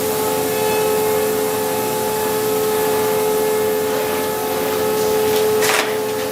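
Woodworking machine running steadily in a factory, a loud constant hum with a hiss over it, and a short hissing burst near the end.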